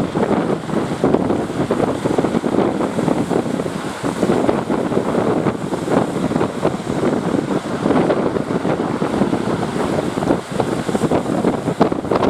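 Wind buffeting the microphone, a dense, unsteady rushing noise, with the wash of sea waves beneath it.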